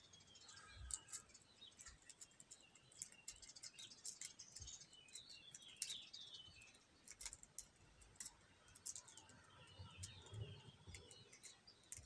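Faint irregular clicks and scrapes of a rake pick and tension wrench working the pins of a 38 mm Kingfisher padlock, the loudest click about six seconds in. The rake is getting no purchase, so the pins do not set and the lock stays shut.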